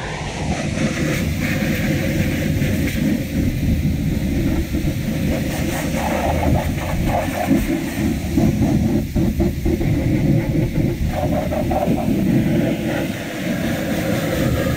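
High-pressure washer jet blasting the underbody of a pickup truck: a loud, steady rush and hiss of water striking the steel chassis, exhaust and skid plates.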